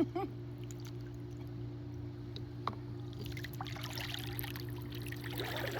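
Water splashing and trickling in a swimming pool, growing busier about three seconds in, over a steady low hum.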